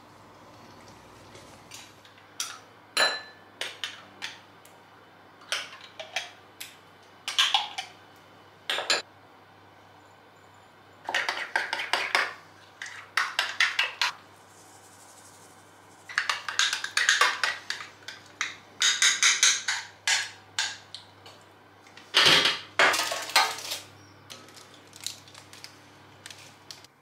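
Metal spoon stirring and scraping in a small ceramic bowl, in bursts of rapid clinking, with scattered separate knocks and clatter of kitchenware.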